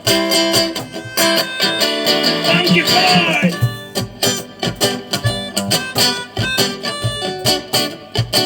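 A small live band playing an instrumental intro: strummed acoustic guitar with harmonica. From about one to three and a half seconds in a higher line bends up and down in pitch over the steady strumming.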